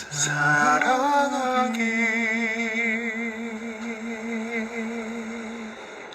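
A man singing a slow ballad, sliding up into one long held note with a steady vibrato that fades out near the end.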